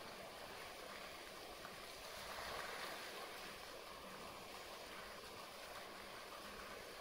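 Steady rush of water in a polar bear's pool, lapping and splashing around the swimming bear, swelling a little between two and three seconds in.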